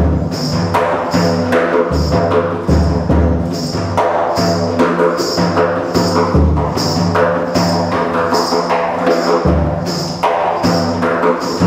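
Live percussion on a small drum kit: a steady beat with cymbal accents on each stroke and low, ringing drum hits.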